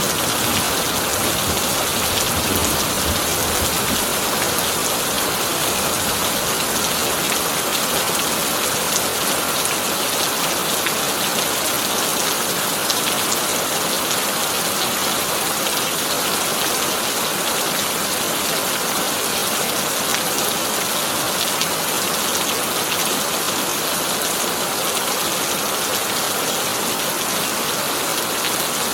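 Heavy rain drumming steadily on a tin roof, an even dense hiss. A thunder rumble dies away in the first few seconds.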